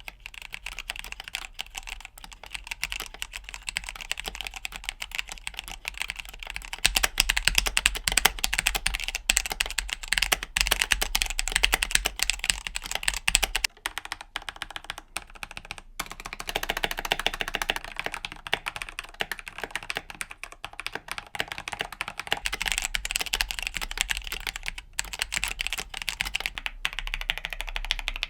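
Fast, continuous typing on a mechanical keyboard fitted with Cherry MX Black linear switches, a dense run of keystrokes with a couple of short breaks about halfway through.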